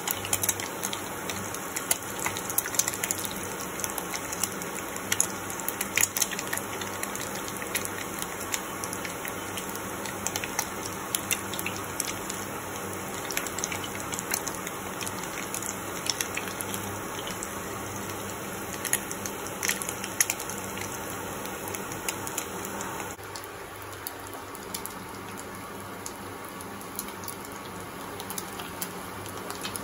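Egg pakoras frying in hot oil in a pan: a steady sizzle with frequent crackling pops. The sizzle drops a little in level about three quarters of the way through.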